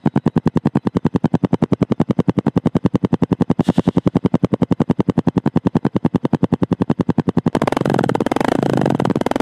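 Exhaust of a Bajaj CT 125X's single-cylinder 125 cc four-stroke engine at the silencer outlet, idling just after starting, with a steady train of separate pulses at about ten a second. About seven and a half seconds in, it changes abruptly to a louder, denser sound in which the pulses run together.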